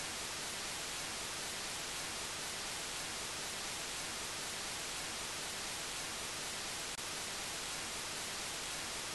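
Steady static hiss, an even noise strongest in the treble, with a faint tick about seven seconds in.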